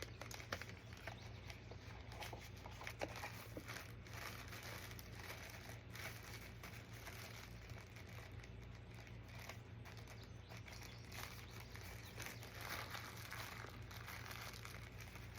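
Packaging being handled and unwrapped: an ongoing crinkling and rustling with many small clicks scattered through it.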